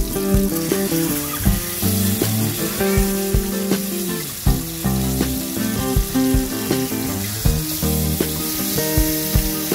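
Whole marinated fish sizzling as they fry in oil in a pan, under background music.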